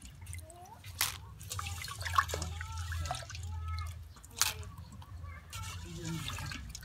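Water dripping from a wet woven bamboo sticky-rice steaming basket into the pot of water below it, with two sharp drip ticks, one about a second in and another past the middle.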